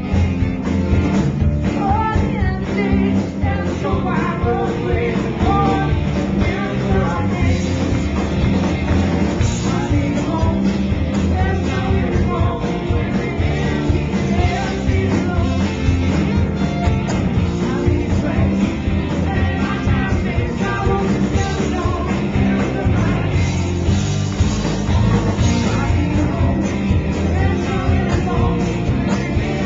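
Live rock band playing loud and steady: electric guitars and a drum kit, with the lead singer's vocal over them, heard as captured by a small handheld camcorder in the crowd.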